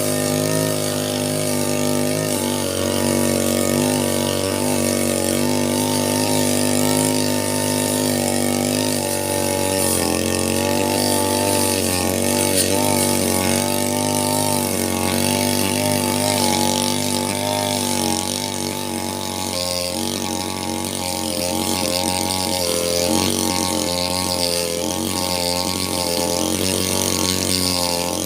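Falcon 328 brush cutter's small engine running continuously at part throttle while cutting grass, its pitch wavering up and down as the speed and cutting load change.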